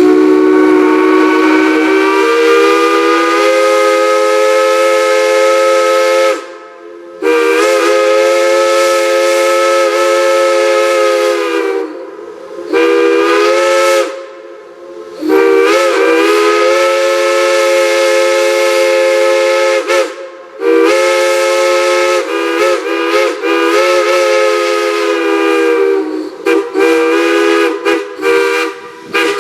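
Multi-chime steam whistle sounding a steady chord of several notes with a hiss of steam, blown in long blasts of about five seconds with short breaks, then a quick string of short toots near the end.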